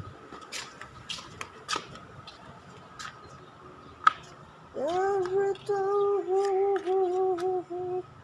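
A few light clicks and taps, one sharper than the rest, then a voice humming a held, slightly wavering note in short phrases for about three seconds.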